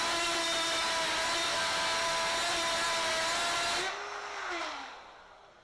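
High-speed power tool fitted with a freshly replaced aluminium-cutting bit, running with a steady high whine, then switched off about four seconds in and spinning down with falling pitch.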